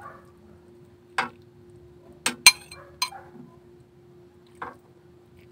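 A kitchen utensil clinking against a metal wok full of noodle soup: five sharp, irregular clinks, the loudest about two and a half seconds in.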